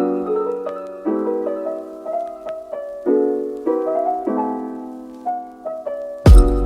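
Background piano music: slow chords and single notes, each fading away, with a new chord about once a second. Near the end a loud hit with deep bass cuts in.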